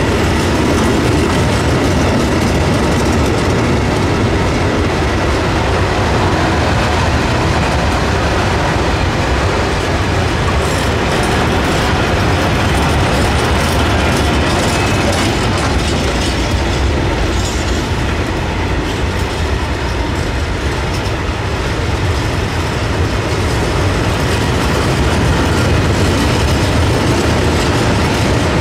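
A train running on the rails: a steady, loud rumble of wheels on track, with some clicks over rail joints partway through.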